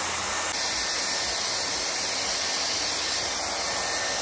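Dyson Airwrap hair styler blowing air through the hair: a steady rushing hiss of its fan and airflow, which turns slightly brighter about half a second in.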